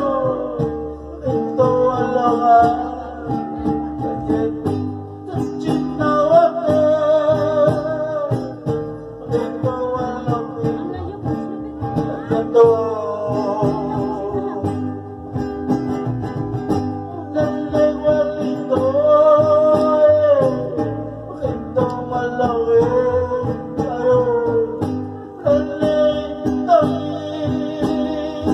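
A small acoustic string group playing: two acoustic guitars, one small and one large, strum a steady rhythm under a man's sung melody of long, wavering held notes in phrases.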